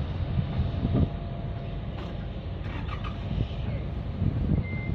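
Low, uneven rumble of a heavy vehicle, with a reversing alarm giving its first high, steady beep near the end.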